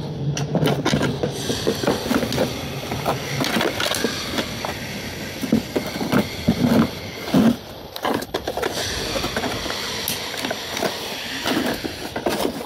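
New drum brake shoes being handled in their cardboard box: cardboard rustling and scraping, with irregular knocks and clinks from the steel shoes and their spring hardware. A low hum fades out about three seconds in.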